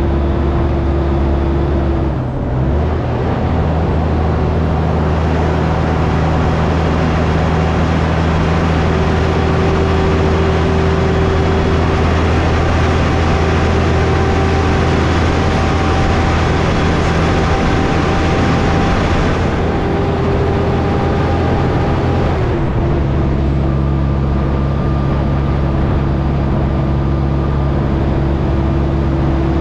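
A tractor-trailer's diesel engine running steadily at cruising speed, with road and wind noise. The engine note changes abruptly about two seconds in and again about two-thirds of the way through.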